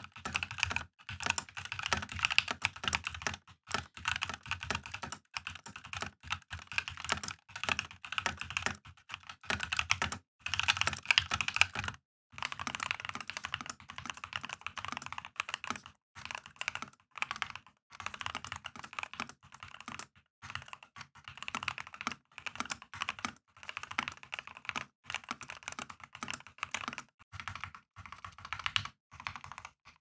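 Fast typing on a Keydous NJ80 mechanical keyboard with C3 Tangerine linear switches and Cherry-profile keycaps, in quick runs of keystrokes with brief pauses. First the board is stock. Partway through it is the modded build: switches lubed and filmed, Poron foam between PCB and plate, extra foam in the base and a three-layer tape mod.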